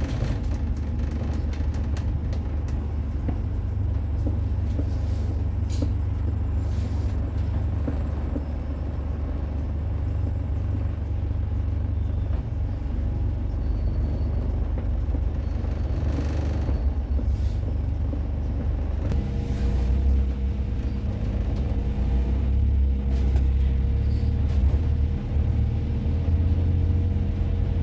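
Double-decker bus running in slow traffic, heard from inside, with a steady low engine rumble and several short hisses of air brakes. About two-thirds of the way through, a steadier engine hum sets in.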